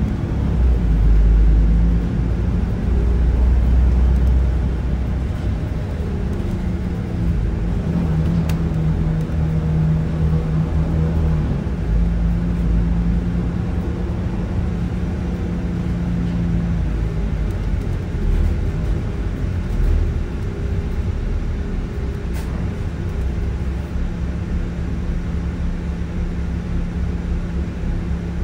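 Cabin sound of an Alexander Dennis double-decker bus: the diesel engine running with a deep rumble, heaviest in the first few seconds, under a steady hum from the air-conditioning.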